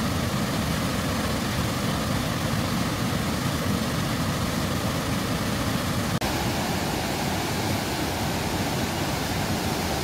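Steady rush of the Chuliya waterfall, heavy white water pouring over rock ledges into the pool below, with a sudden click and a momentary dropout about six seconds in.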